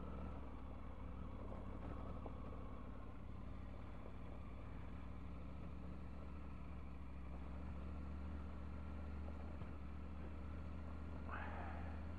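Triumph Tiger 900's three-cylinder engine running steadily as the motorcycle is ridden along an off-road track. There is a brief sharper sound near the end.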